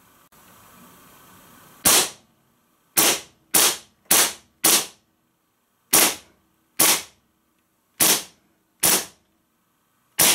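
Umarex Legends P08 Luger gas-blowback BB pistol firing ten sharp shots, the toggle action cycling on each. The shots come at uneven spacing, some about half a second apart and others more than a second apart, starting about two seconds in.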